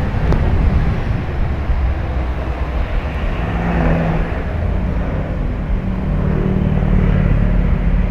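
Bus engine running with steady road rumble; a low, steady engine note comes up about three and a half seconds in and holds through the second half.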